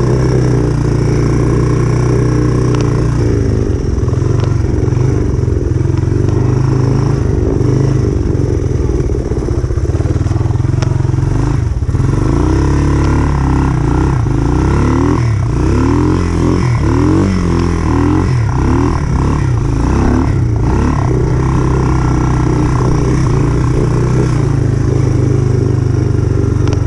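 Motor trike engine running steadily at a constant loud level.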